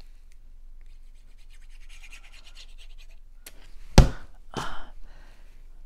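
A hand swatting at a fly makes a sharp thump about four seconds in, then a softer one about half a second later. Before that comes faint scratchy rubbing of paper being handled.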